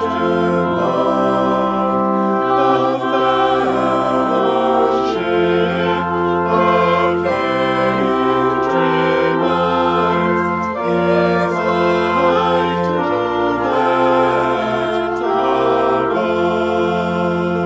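Choral music: a choir singing over sustained accompaniment chords, with the low bass note changing every one to two seconds.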